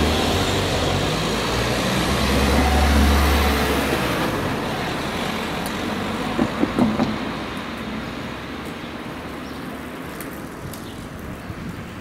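Road traffic at a railway level crossing: a vehicle passes close with a deep rumble that peaks about three seconds in, then a car's tyres knock several times over the rails around seven seconds in, and the traffic noise fades away.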